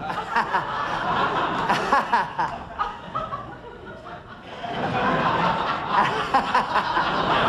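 Audience laughter in waves: it fades about halfway through and swells again near the end.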